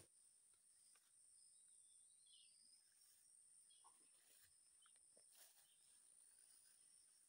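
Very faint woodland ambience: a steady high-pitched insect drone, with a short bird chirp about two seconds in and a few soft rustles.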